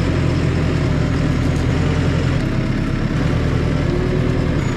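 Tractor engine running steadily under way, carrying two bulk fertiliser bags on the front loader; the low engine note shifts down about two and a half seconds in.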